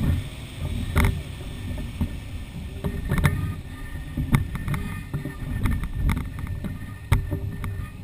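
Wind buffeting the microphone of a kite-borne camera as it climbs: an uneven low rumble with a hiss, broken by irregular sharp clicks and knocks.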